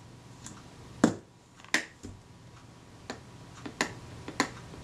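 Small sharp clicks and taps, about six of them spaced a fraction of a second to a second apart, from the Kodak Retina IIIc camera's metal front door being handled against the camera body and set down on the bench.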